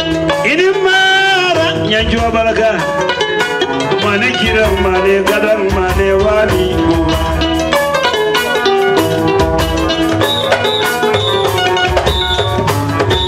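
Live Gambian dance-band music: plucked-string lines over a drum kit keeping a steady beat, with a voice singing or calling out briefly near the start.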